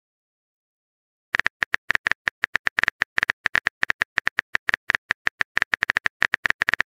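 Simulated phone keyboard typing: a rapid, irregular run of short taps from a texting-story app's typing sound effect, starting after about a second of silence.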